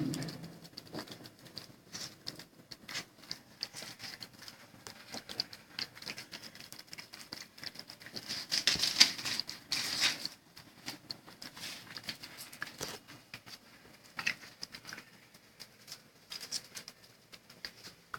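A pet chewing dry kibble: a fast, irregular run of small crunches and clicks, busiest about eight to ten seconds in.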